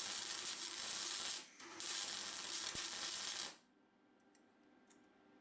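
Electric arc welder tack-welding mild steel petals onto the rose, an even hiss of arc in two runs: the first stops about a second and a half in, the second runs from about two seconds to three and a half.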